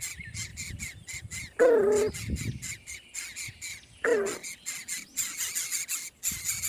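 Two loud, harsh bird squawks, each falling in pitch, about one and a half seconds and four seconds in, over a fast, steady, high-pitched chirring.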